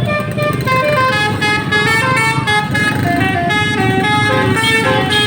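Basuri telolet multi-tone bus horn playing a quick tune, its notes stepping up and down several times a second, over the low rumble of the bus.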